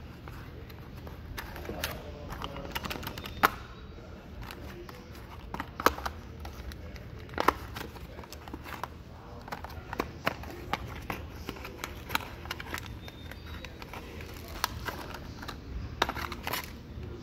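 Hands opening and handling a small paperboard box: scattered clicks, taps and light scraping of the cardboard, with a few sharper clicks spread through, over a steady low hum.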